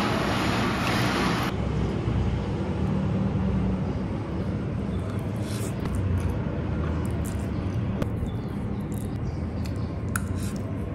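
Steady low background rumble with scattered small clicks and mouth noises of someone eating noodles with chopsticks.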